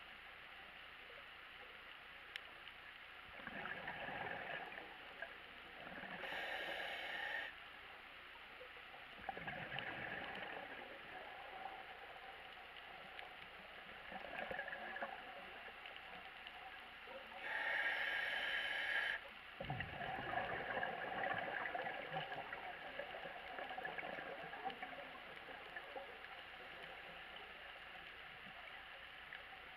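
Scuba diver breathing through a regulator, heard underwater: two hissing inhalations and three gurgling bursts of exhaled bubbles, several seconds apart, over a steady hush of the water.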